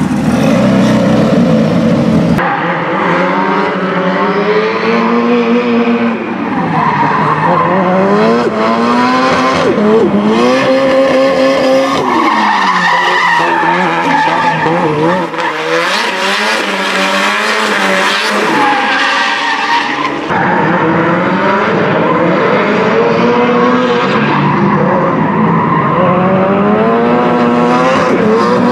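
Nissan S13 drift car drifting: its engine revs up and down in repeated sweeps while the rear tyres squeal and skid across the asphalt. The sound shifts abruptly about two seconds in and again about twenty seconds in.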